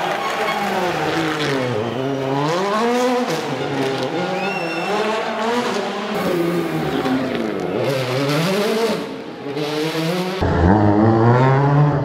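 Rally car engine revving hard and dropping back again and again through gear changes as it drives the stage. About ten seconds in, the sound cuts to a louder, deeper engine.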